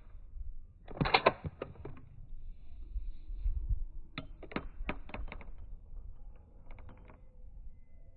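Sharp metallic clicks and clacks from handling a Mossberg 802 bolt-action .22 rifle, coming in quick clusters: one about a second in, a longer run of several clacks past the middle, and a fainter few near the end.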